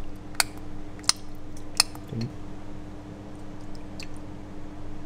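Four sharp clinks of a steel mixing bowl knocking against small ceramic bowls as a thick panna cotta mixture is poured into them, over a steady low hum.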